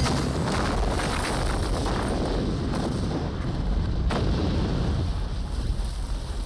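Film sound effect of a large explosion, the home-made torpedo blowing up the ship: a sudden blast, then continuing rumbling and crackling blasts, with a sharp crack about four seconds in.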